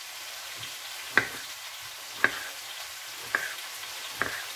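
Knife cutting a tomato on a wooden cutting board: four sharp taps about a second apart. Under them runs the steady sizzle of diced vegetables frying in an uncovered pan.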